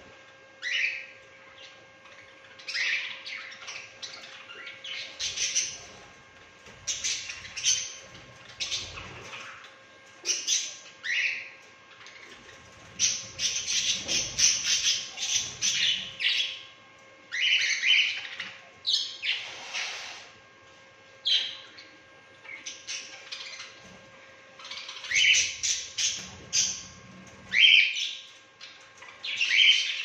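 A flock of budgerigars chirping and chattering in irregular bursts, with a denser run of chatter about halfway through.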